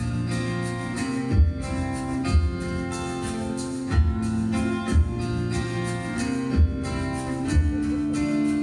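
Two acoustic guitars playing an instrumental passage live, with deep low thuds recurring at a steady pulse under the sustained chords.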